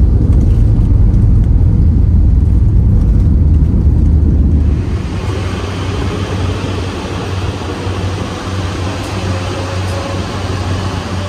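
Airliner cabin noise: a loud low rumble that gives way, about five seconds in, to a somewhat quieter, brighter rushing noise.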